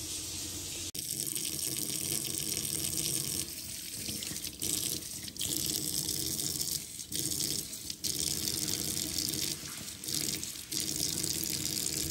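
Kitchen tap running into a stainless steel sink, the splashing changing again and again as hands are washed and rubbed under the stream.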